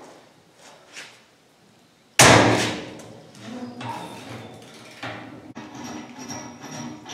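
One loud metal clang about two seconds in, ringing on for about a second, then lighter metal clinks and knocks: steel brush hog blade parts being handled against the mower deck.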